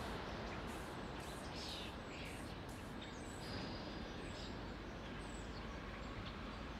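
Steady outdoor background noise with a few short bird chirps scattered through it.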